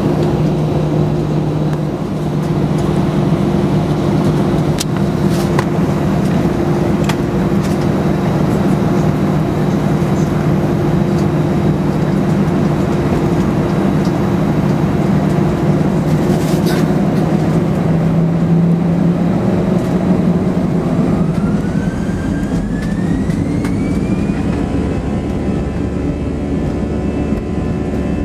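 Airbus A319 jet engines running at taxi power, heard inside the cabin as a steady low hum with a few sharp clicks. Near the end a whine rises in pitch.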